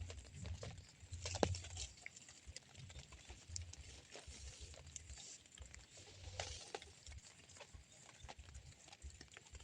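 Light rain: scattered raindrops ticking at irregular intervals, with a low rumble underneath at times.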